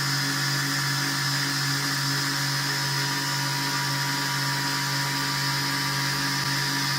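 Homemade belt grinder running at a steady speed: a constant motor hum with a steady higher whine above it.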